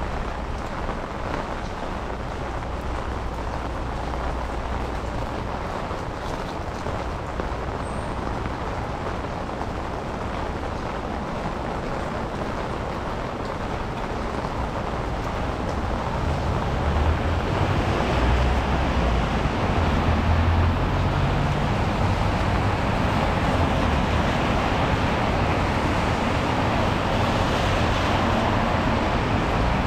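Rain and city traffic on a wet street: a steady hiss of rain and tyres. About halfway through it grows louder, with a low rumble as heavier traffic passes close by.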